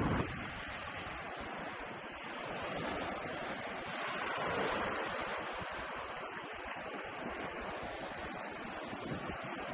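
Gulf surf washing onto a beach, a steady wash of waves that swells a little about halfway through. Wind buffets the microphone briefly at the start.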